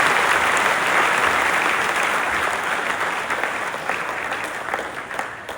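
Large audience of students applauding, many hands clapping together; it is loudest at the start and slowly dies away toward the end.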